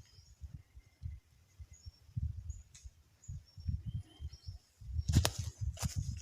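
Small birds chirping faintly in short high calls over irregular low thumps. About five seconds in there is a louder patch of rustling and crackling.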